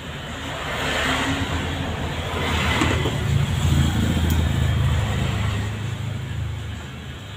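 A motor vehicle's engine passing by, swelling to its loudest about midway and then fading.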